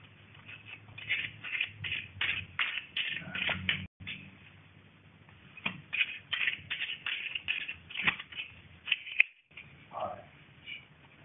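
A deck of playing cards shuffled by hand, quick runs of crisp card flicks in two spells with a short break between them.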